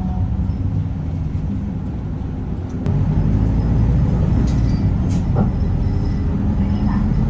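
City bus engine and road noise heard inside the cabin, a steady low hum that grows louder about three seconds in, just after a single sharp click.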